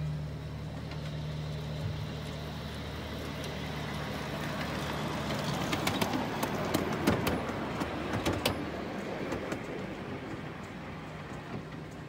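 Miniature ride-on train passing on its track, growing louder and then fading, with a run of sharp clicks from the wheels over the rail joints as it goes by.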